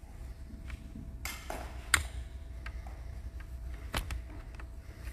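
Clinks and knocks of altar vessels, chalices and glass cruets, being handled on the stone altar. There are a few separate sharp strikes, the loudest about two seconds in, over a low steady hum.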